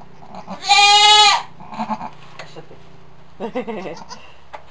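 A goat bleats once, loud and high, about a second in, lasting under a second. A quieter, lower sound follows about three and a half seconds in.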